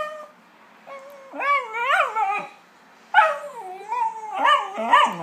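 A small dog 'talking' back: drawn-out, howl-like whining calls that waver up and down in pitch. One call comes about a second in, and a longer one starts about three seconds in and runs on.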